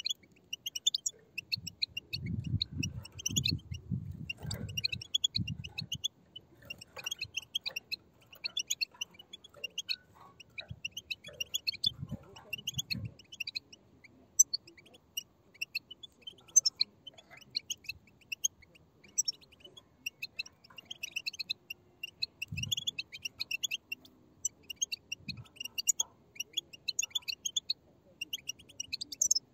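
A group of young European goldfinches chirping and twittering in quick, dense, high-pitched calls, with several low muffled thuds at times, a cluster of them in the first few seconds.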